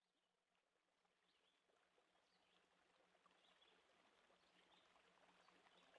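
Very faint running-stream ambience fading in, with scattered small high chirps over it and a faint low steady hum.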